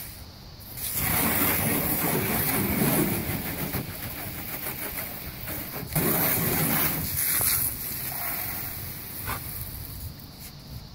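Garden hose spraying water, a steady hiss that starts about a second in and eases off near the end.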